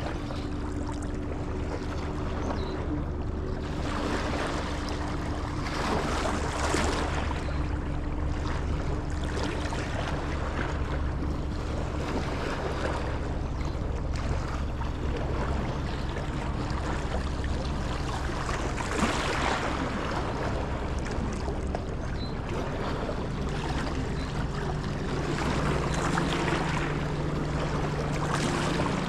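A boat motor hums steadily under wind and water noise, its pitch shifting about three-quarters of the way through. Gusts swell over it several times.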